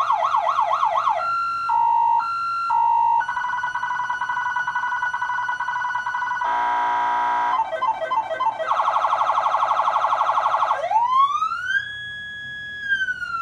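Electronic emergency-vehicle siren cycling through its tones: a fast yelp, then a two-note hi-lo, a steady tone, a brief buzzy horn blast about halfway, a very fast warble, and a slow wail that rises, holds and starts to fall near the end.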